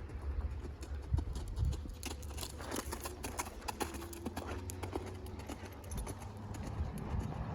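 Hoofbeats of a horse moving under saddle, with a quick run of sharp hoof strikes in the middle.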